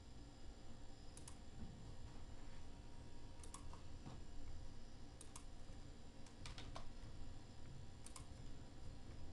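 Faint computer mouse and keyboard clicks: a handful of sharp clicks, mostly in quick pairs, spaced a second or two apart.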